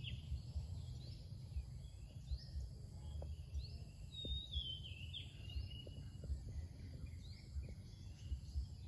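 Faint bird calls, short chirps that rise and then fall in pitch, recurring every second or so, over a low rumble of outdoor background noise.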